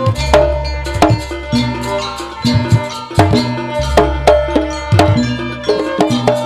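Live jaranan music from a Banyuwangi folk ensemble: drums and pitched percussion struck in a fast, busy rhythm over sustained ringing tones. A deep low tone swells in and holds for a couple of seconds, about every three and a half seconds.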